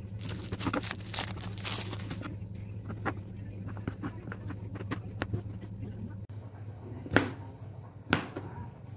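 Kitchen knife slicing blocks of tempeh on a cutting board: a run of light taps and scrapes as the blade meets the board, with two sharper knocks near the end. A steady low hum runs underneath.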